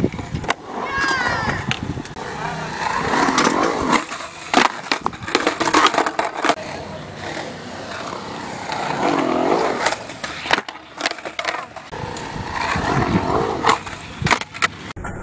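Skateboard wheels rolling and carving on a concrete bowl, broken by sharp clacks and slaps of the board popping and landing.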